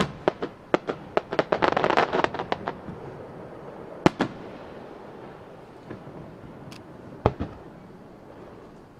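Aerial firework shells bursting: a quick run of sharp bangs and crackling over the first three seconds, then two bangs about four seconds in and one more about seven seconds in, with a lingering rumble between them.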